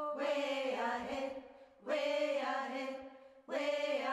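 A voice chanting in long held notes, three phrases of about a second and a half each with short breaks between.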